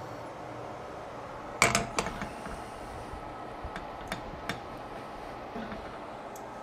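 Cooking utensil knocking against a stainless steel pan while stirring a cream sauce: a loud clatter of several knocks about a second and a half in, then a few light, separate taps.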